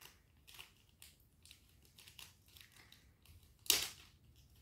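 Small plastic packet of thermocol (polystyrene) beads crinkling faintly as it is fingered open, with one sharp, louder rustle about three and a half seconds in as the packet gives way and the beads start pouring out.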